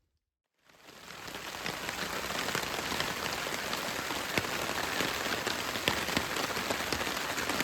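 Steady rain falling, with many separate drops striking close by; it fades in about half a second in and then holds steady.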